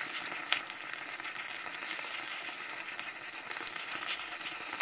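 Pancake batter sizzling softly in a frying pan on the stove: a steady low hiss with a few faint clicks.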